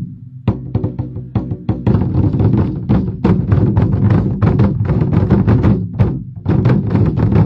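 Twenty-Four Festive Drums ensemble: many large Chinese barrel drums beaten with sticks in unison, a fast, driving rhythm. It breaks off briefly at the start and again about six seconds in before the strokes resume.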